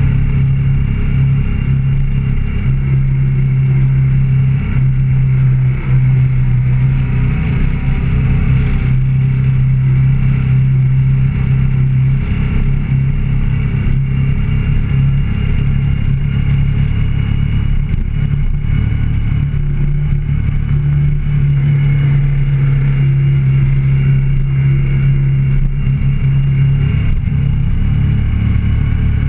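Motorcycle engine running at a steady cruise, heard from on the bike, with its pitch rising slightly about two-thirds of the way through.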